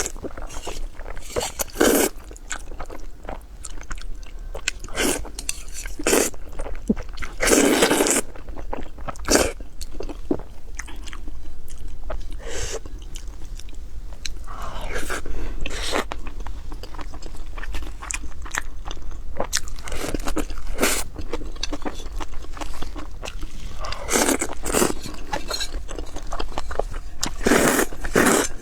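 Close-miked eating sounds: a person biting and chewing crunchy food, with irregular crunches every second or few.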